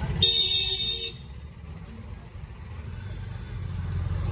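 Street traffic rumbling steadily, with a brief loud high-pitched tone lasting about a second near the start.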